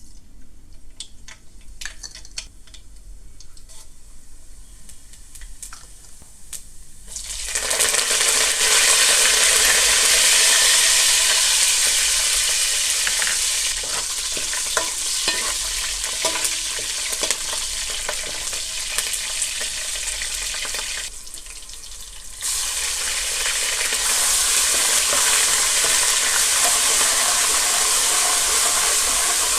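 Food frying in hot oil in a pan, sizzling loudly, with stirring. It opens with a few light clinks, the sizzle starts suddenly about seven seconds in, cuts out for a moment about two-thirds of the way through, then comes back just as loud.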